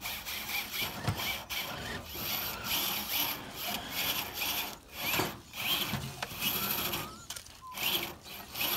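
Electric RC rock crawlers' motors and gearboxes whirring in stops and starts, with tyres scrabbling and rubbing over rusty sheet-metal car bodies, under a thin steady high whine.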